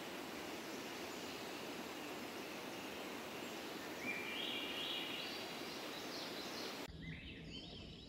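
Swainson's thrush singing its upward-spiralling song over a steady rushing background noise: about four seconds in, one phrase climbs through a series of notes. Near the end the rushing stops abruptly and more bird song continues over a quieter background.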